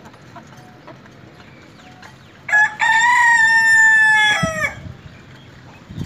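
A rooster crows once: one long call of about two seconds that swoops up at the start, holds steady and drops away at the end.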